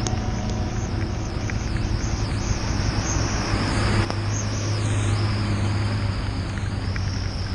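Harley-Davidson Street 750's V-twin engine running at a steady low pitch, under a continuous hiss of wind and rain.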